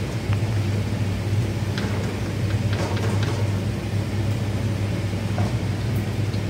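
Sliced onions sizzling in hot oil in a wok as a wire skimmer scoops them out into an aluminium colander, with a few light clicks and scrapes. A steady low mechanical hum runs underneath.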